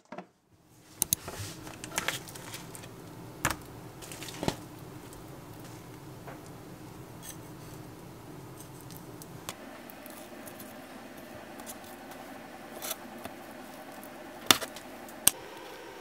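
Kitchen prep sounds of raw chicken tenderloins being handled and seasoned: scattered sharp clicks and taps of utensils and containers, two of them loud near the end.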